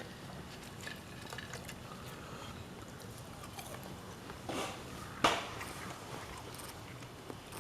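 Someone biting into and chewing a piece of breaded fried fish, with small clicks throughout and a sharp, loud crunch or knock about five seconds in.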